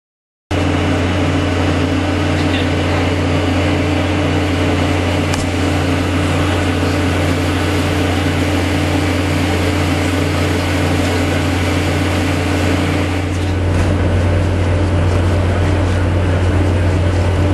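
Steady drone of the research vessel Lake Guardian's machinery on deck, a low hum with a faint regular pulsing, starting abruptly about half a second in; near the end the low rumble grows stronger and rougher.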